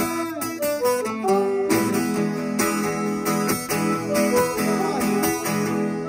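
Live music: an acoustic guitar strummed and picked, with sustained harmonica notes that bend in pitch over it.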